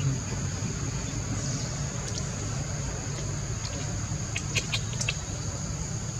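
Outdoor background: a steady low hum under a steady high-pitched drone, with a few short high squeaks or chirps about four and a half seconds in.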